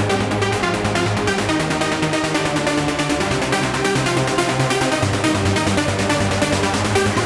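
Electronic trance/techno background music with a steady fast beat.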